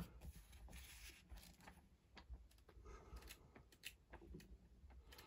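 Near silence: room tone with a short click at the start and a few faint scattered clicks.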